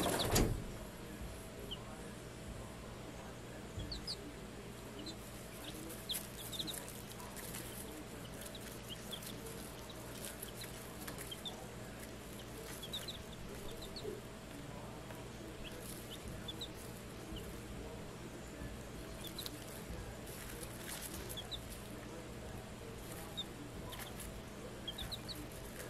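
Week-old bantam chicks peeping now and then, many short high chirps scattered over a steady faint hum. A brief louder sound comes right at the start.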